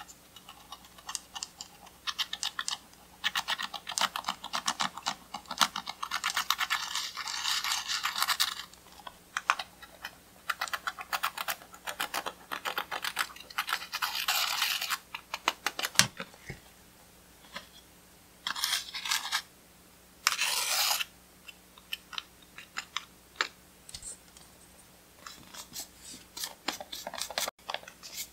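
A pointed tool scraping and digging pressed eyeshadow out of the pans of a plastic palette: fast, fine scratching strokes in runs of a few seconds, with scattered clicks and taps between them.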